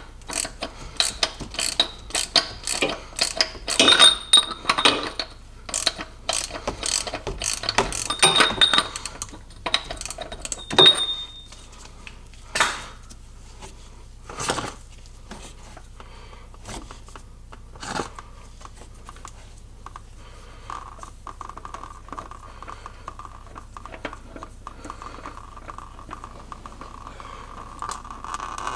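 Ratchet wrench clicking in quick runs, with brief metallic rings, for about the first eleven seconds, then a few separate metal clinks and clanks.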